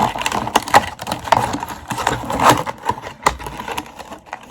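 Crinkling and rustling of packaging, with irregular clicks and knocks as items are handled and unwrapped.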